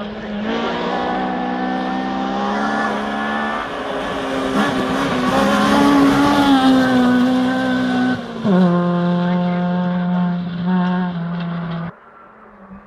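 Honda Civic hatchback rally car passing at speed on gravel, its engine at high revs growing loudest as it goes by. The engine note drops sharply in pitch about two thirds through, then holds steady until the sound cuts off near the end.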